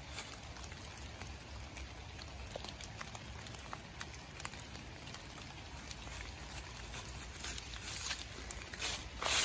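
Dry fallen leaves crackling and rustling as a dog sniffs and steps through them, with louder swishes through the leaves near the end as it moves off.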